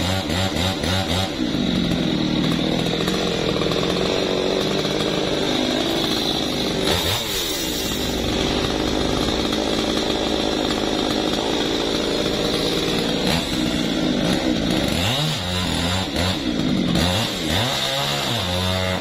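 Two-stroke chainsaw running at high revs, cutting wood. The engine note dips and picks up again about seven seconds in, and several times more near the end.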